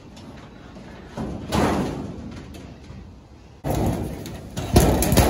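Thin sheet-steel shed panels and parts being handled, rattling and flexing, with a sudden loud clatter a little over halfway through and a few sharp bangs near the end.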